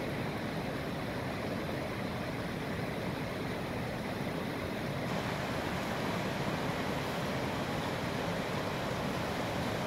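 River water rushing steadily, an even hiss of flowing water with no breaks.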